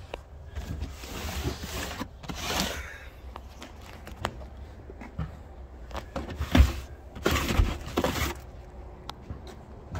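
Cardboard amplifier boxes being picked up and shifted about on a carpeted car trunk floor: scattered knocks and scuffs, with a sharp thump about six and a half seconds in and a short spell of scraping just after.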